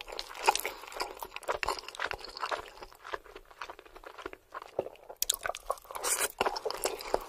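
Close-miked chewing of meat-sauce lasagna: wet, crunchy mouth sounds with many sharp clicks, and a wooden spoon scooping from the plate. A new bite is taken near the end.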